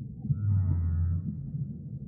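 Whale call: a deep, steady low moan lasting just under a second, with a fainter wavering higher call above it, over a continuous low rumble.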